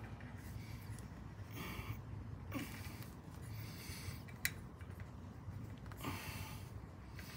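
Quiet handling noises from a rubber breather hose being worked into place on the engine: four short rustles and one sharp click about four and a half seconds in, over a low steady hum.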